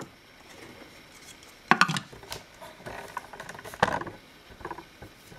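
Plastic knocks and clicks of a Thermomix TM5's lid being handled and fitted back onto the mixing bowl, a few separate knocks, the loudest about two seconds and four seconds in; the blades are not running.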